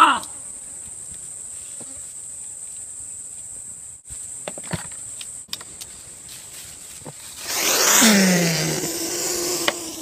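Steady high-pitched drone of insects. Near the end it is joined by loud rustling from the microphone being handled and moved close.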